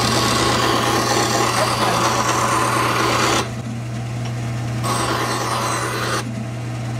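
Bandsaw running with a steady motor hum while its blade cuts through a small piece of wood twice: a first cut lasting about three and a half seconds, then a shorter one about five seconds in.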